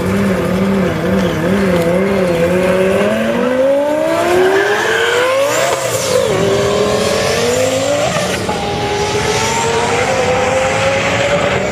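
Twin-turbo Lamborghini Gallardo V10 held at revs on the start line with its pitch wavering. About three seconds in it launches and accelerates hard, the engine note climbing through the gears with upshifts near the middle and again a couple of seconds later.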